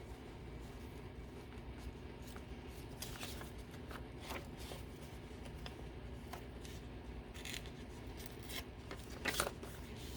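Scissors cutting paper in a few separate short snips, with paper being handled between them; the loudest snip comes near the end.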